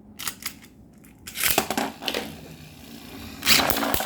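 Beyblade Burst tops Bloody Longinus and Revive Phoenix launched into a plastic stadium: a sudden rasping launch about a second and a half in, scraping as they spin across the stadium floor, then a loud collision near the end, after which the tops grind and rattle against each other.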